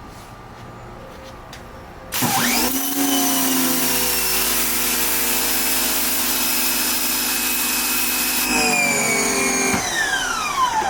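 Electric pressure washer firing through a 25-degree fan nozzle at concrete. About two seconds in, the motor spins up with a rising whine and the spray starts with a loud hiss; it runs steadily for about six seconds. The hiss then cuts off as the trigger is released, and the motor whine falls away as it winds down.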